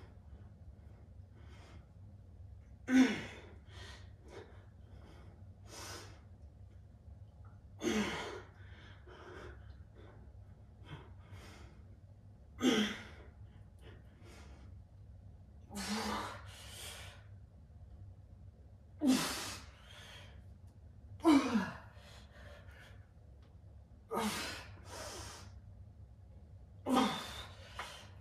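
A weightlifter's forceful exhales, each with a short grunt that falls in pitch, about ten of them spaced two to four seconds apart: the effortful breathing of straining through a set of biceps curls. A steady low hum runs underneath.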